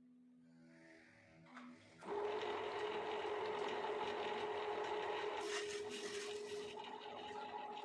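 Wood lathe starting to run about two seconds in, with a steady hum and a scraping, rasping noise of a tool cutting the turning wood.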